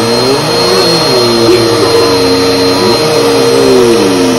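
Bissell PowerForce upright vacuum cleaner running steadily on carpet, with a constant high whine over its motor hum.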